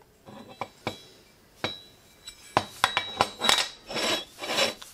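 Welded steel tool holder of box section and plate being handled on a metal bench top: a series of sharp metal clinks and knocks with a faint ring, coming faster in the second half.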